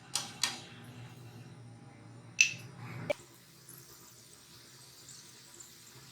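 A few sharp clicks and knocks of a cooking utensil, the loudest about two and a half seconds in, then a faint steady hiss: a stuffed paratha being fried with oil on a hot griddle.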